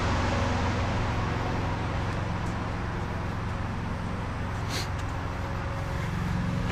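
Diesel truck engine idling steadily with a low rumble, with a brief high-pitched sound about five seconds in.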